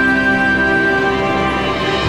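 Background music with sustained held chords at a steady level.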